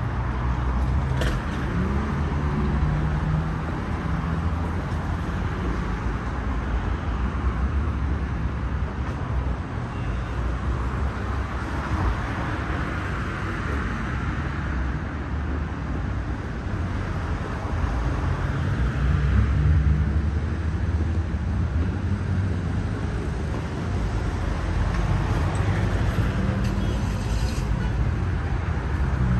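Road traffic: a steady rush of tyres and engines, swelling as vehicles pass about twelve and again about twenty seconds in.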